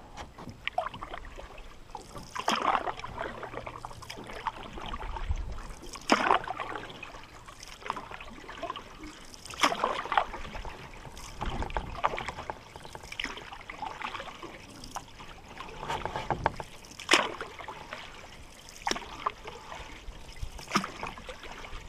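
Canoe paddle dipping and pulling through lake water, one stroke every few seconds, with water trickling between strokes.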